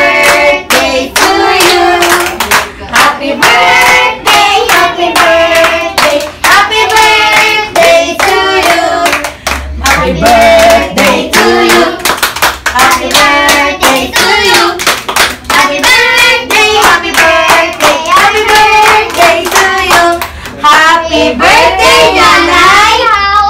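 Voices singing to steady hand clapping kept in time with the song.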